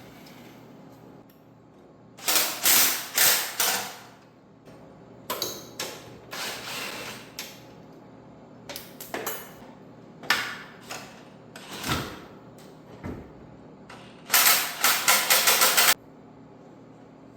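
Workshop tool noise during a teardown of a small three-wheeler: several separate bursts of rapid mechanical clattering and knocking. The last and loudest burst, near the end, has a quick even beat and cuts off suddenly.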